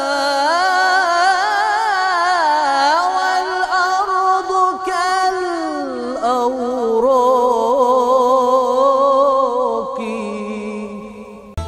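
A solo male voice, unaccompanied, sings an Egyptian ibtihal (Islamic devotional chant) in one long melismatic phrase whose ornamented line winds up and down. It fades on a held note near the end.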